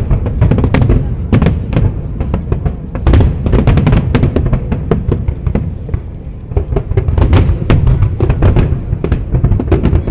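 Fireworks display bursting in a rapid barrage, many sharp bangs and deep booms close together, easing briefly about six seconds in before picking up again.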